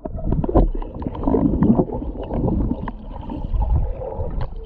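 Muffled underwater sound of a swimming pool picked up by a submerged camera: water sloshing and gurgling with many small knocks and clicks as a child kicks and paddles in a swim ring.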